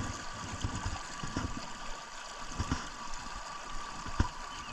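Creek water running steadily, with a few soft knocks, one sharper about four seconds in.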